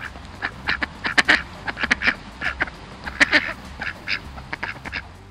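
Ducks quacking: an irregular string of many short quacks, loudest a little over a second in and again about three seconds in.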